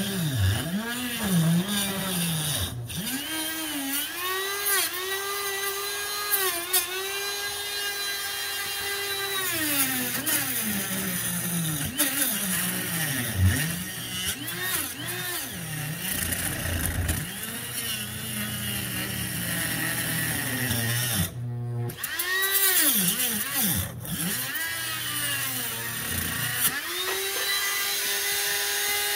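Dremel rotary tool with a cut-off wheel cutting into a rusted, seized forward-reverse shifter: the motor's whine sags and climbs in pitch again and again as the wheel bites into the metal and frees. Near the end the tool comes off the work and runs at a steady pitch.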